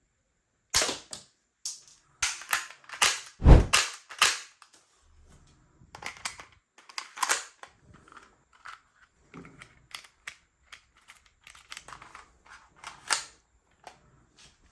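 Toy gun being worked and fired: a rapid run of sharp plastic snaps and clacks, the loudest with a thud about three and a half seconds in, followed by lighter clicks and one more loud snap near the end.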